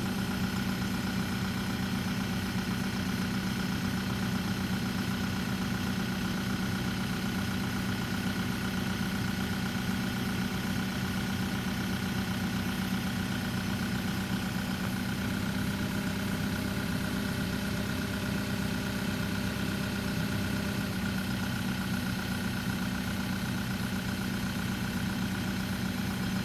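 Case 770 FX backhoe loader's diesel engine idling steadily at an even pitch.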